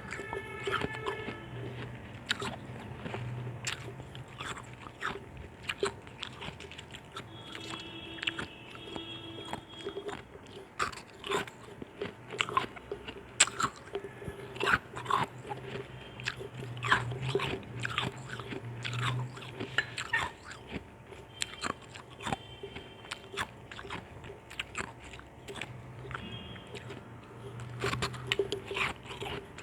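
Ice chunks being bitten and crunched between the teeth, with many sharp, irregular crunches and chewing in between.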